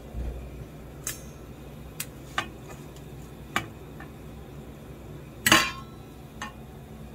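Plastic rice paddle knocking and scraping against a rice cooker's inner pot and a stainless steel mixing bowl as cooked rice is scooped across: about six separate knocks, the loudest a longer clatter about five and a half seconds in.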